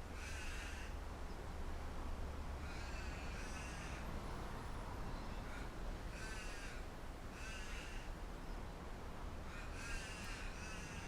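A bird giving about five harsh calls, each under a second long and a few seconds apart, over a steady low rumble of wind.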